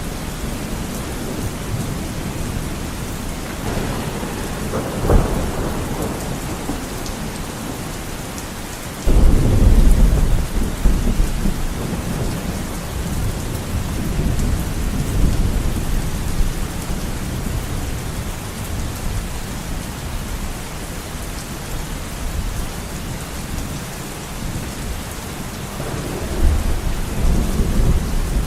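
Heavy rain pattering steadily on a window through a thunderstorm. About nine seconds in, a thunderclap breaks in suddenly with a deep rumble that trails off over several seconds, after a shorter crack about five seconds in; more thunder rumbles near the end.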